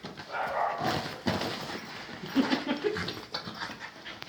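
A pet dog whimpering briefly amid scuffling and rustling noises as it plays around a bag that is being packed.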